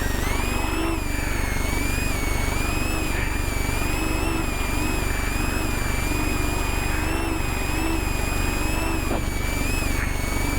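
Off-road race truck running at speed over rough terrain: steady engine and drivetrain noise with a high whine that rises and falls a little as the speed changes.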